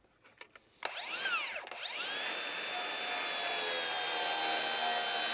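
DEWALT DCS577 FlexVolt 60V cordless rear-handle circular saw. About a second in, its motor whines up and winds straight back down, then spins up again and runs at a steady high whine, the blade not yet in the wood.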